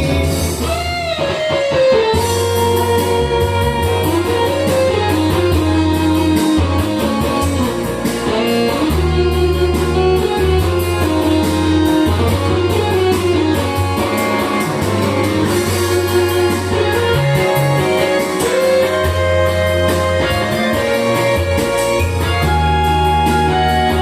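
Instrumental break of a pop-rock backing track: a lead guitar plays a melody over bass and a steady drum beat, with no singing.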